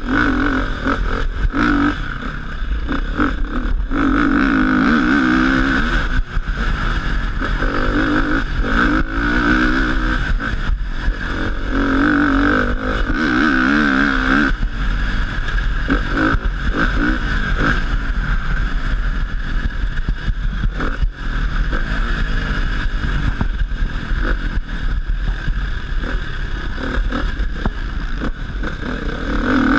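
Off-road dirt bike engine heard from the rider's helmet camera, revving up and falling back again and again as the bike accelerates and backs off over the track. Short knocks from bumps and a steady rush of wind on the microphone run under it.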